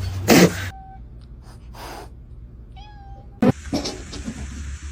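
A domestic cat meowing, with a short pitched meow a little after three seconds, followed by a sharp knock.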